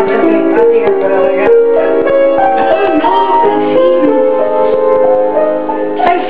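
Instrumental music: a slow melody of held notes over sustained chords, played live.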